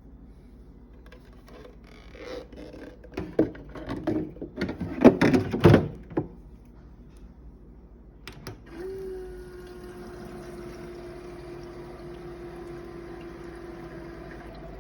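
A few seconds of irregular knocking and clattering, then a HiCOZY countertop ice maker starts up about nine seconds in with a steady, single-pitched droning hum that holds on unchanged. The owner calls it a horrible sound on first use.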